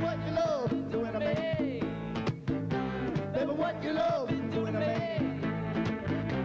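Live acoustic rock band playing: strummed acoustic guitars over bass and drums, with a man singing lead.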